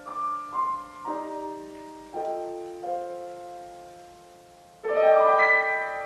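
Piano playing the closing passage of a piece for men's chorus and piano: a few single notes and chords, each struck and left to fade, then a louder full chord about five seconds in.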